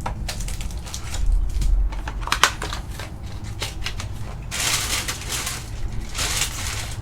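Cardboard hanger box of trading cards being torn open by hand: a few sharp clicks and crunches, then two longer ripping noises in the second half.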